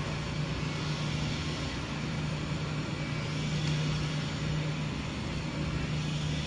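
A steady mechanical drone: a low, even hum under a constant hiss.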